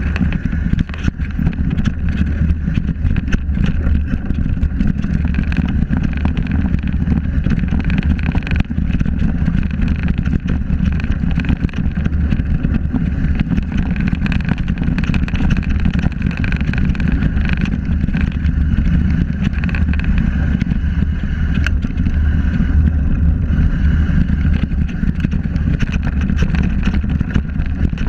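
Mountain bike riding downhill on a rocky dirt trail: a steady rumble of wind on the bike-mounted camera's microphone and knobby tyres on gravel, with many small rattles and knocks from the bike over the bumps.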